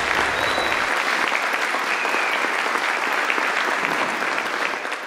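Audience applauding steadily in a hall, the clapping tailing off near the end.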